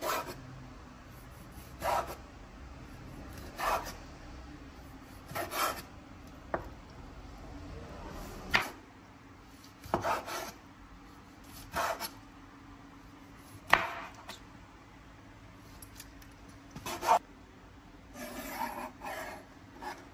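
Kitchen utensil scraping in short rough strokes, about one every two seconds, over a faint steady hum.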